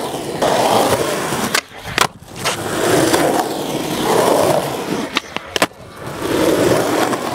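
Skateboard wheels rolling over rough concrete, broken twice by sharp clacks of the board about a second and a half in and again near five seconds, each followed by a brief gap in the rolling.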